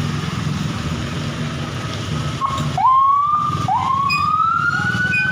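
Two rising siren whoops about a second apart, each jumping up quickly and then sliding slowly higher, the second longer and higher than the first, over a steady low vehicle engine rumble.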